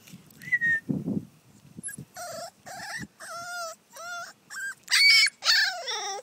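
American neo bull puppy whining while tied out on a rope: a run of about seven short, high cries starting about two seconds in, the loudest and highest about five seconds in, and a last whine that falls in pitch.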